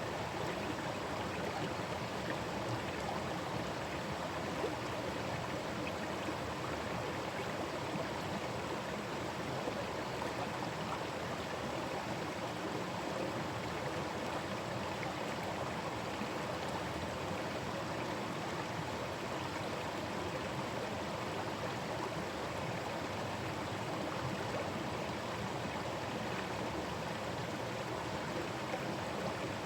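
Forest stream running over rocks: a steady rushing and gurgling of water.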